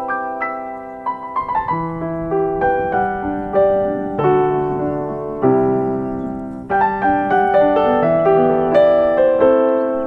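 Background piano music: a slow melody of struck notes and chords, each one ringing and dying away before the next.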